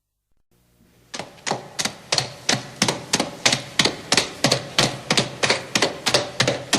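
Rapid, even series of sharp clicks or taps, about four a second, starting about a second in after a short silence.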